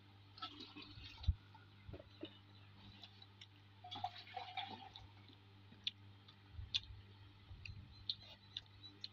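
Fingers mixing and squeezing cooked rice with curry on a ceramic plate: soft wet squishes and light, irregular clicks of fingertips and nails against the plate, over a low steady hum.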